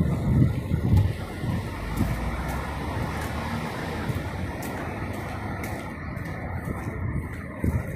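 Steady city street ambience with a background hum of road traffic, and a few low thumps in the first second or so.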